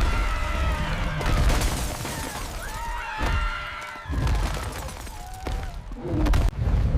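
Loud crashing and shattering noise over a heavy low rumble, with repeated sharp impacts.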